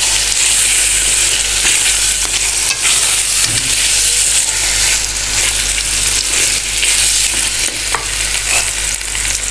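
Potato and eggplant curry sizzling in a pan while a wooden spatula stirs it, with a steady hiss and scraping strokes of the spatula against the pan.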